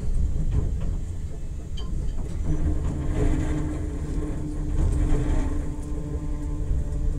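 Enoden electric train running, heard from inside the car: a steady low rumble of the wheels on the rails and the running gear. A steady hum from the drive sets in about two and a half seconds in.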